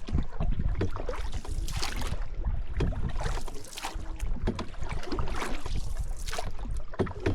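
Canoe paddle strokes in water, a swish about once a second, over a steady low rumble of wind on the microphone.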